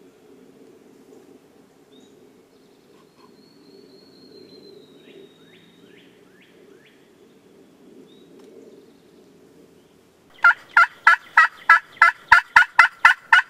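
A fast, loud run of about fourteen turkey yelps, four to five a second, starting about ten seconds in and lasting about three seconds. Before it, only a few faint small-bird chirps.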